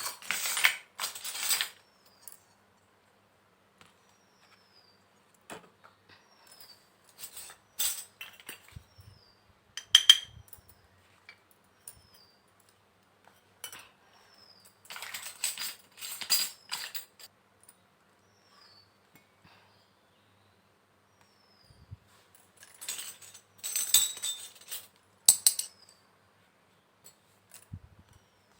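Small miniature kitchen toy pieces being handled, clinking and tapping against each other in short clusters of sharp clicks, separated by quieter pauses.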